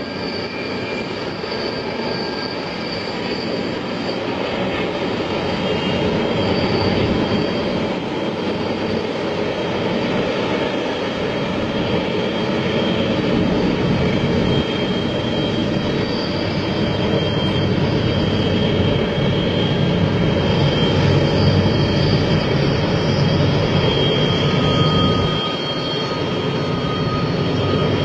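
A long train rolling past in a steady rumble, with thin high tones coming and going over it; it grows slowly louder, with a brief dip about 25 seconds in.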